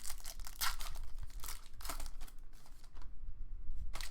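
Trading card pack wrapper crinkling and tearing, with cards handled in several short rustling bursts.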